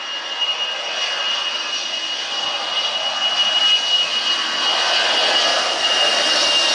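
Jet airliner's engines growing steadily louder as the aircraft draws near: a broad rush with a steady high whine running through it.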